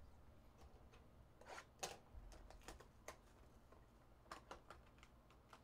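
Faint handling of trading cards and a foil card pack: a scattering of soft clicks and light crinkles.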